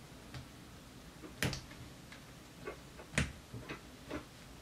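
Light clicks and taps of 3D-printed plastic drone frame parts being handled and fitted together by hand. Two sharper clicks come about a second and a half and three seconds in, among several fainter ones.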